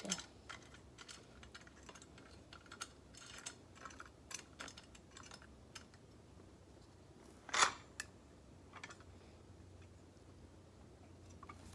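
Light, irregular clicks and taps of a manual grain grinder's parts being handled and fitted together during assembly, with one louder clack about seven and a half seconds in.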